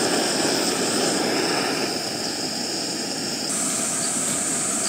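Portable canister gas stove burner running with a steady roar under a pot of boiling water, while cicadas drone in a steady high buzz that shifts pitch about three and a half seconds in.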